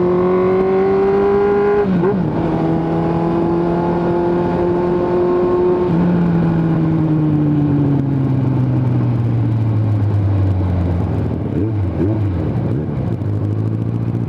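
Suzuki GSX750F's inline-four engine through a straight-pipe exhaust, heard from the rider's seat: pulling under throttle, a quick gear change about two seconds in, then a steady cruise. About halfway through the revs fall steadily as the bike slows, with a couple of brief rev changes like downshifts near the end.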